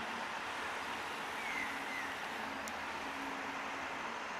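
Distant meter-gauge passenger train running away along the track, a steady rumble and hiss without a clear beat. A brief high chirp comes about a second and a half in.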